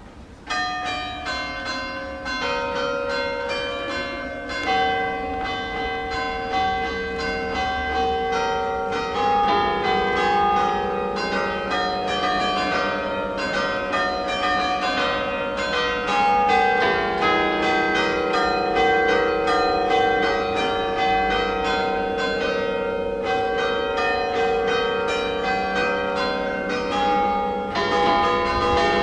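Festive peal ('suonata a festa') on a church's ring of eight bronze bells tuned in E-flat, tenor on E♭3: many strikes in quick succession, the notes overlapping and ringing on, starting about half a second in.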